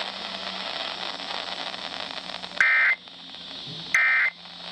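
Weather-radio receiver hissing with static, then two short, loud bursts of warbling digital data tones about a second and a half apart: the EAS/SAME end-of-message data bursts that close an alert.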